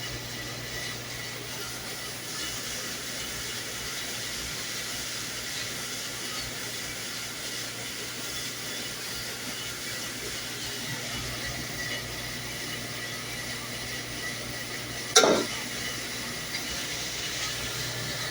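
Commercial dishwasher running: a steady hiss of spraying water over a low hum, with a single sharp clunk near the end.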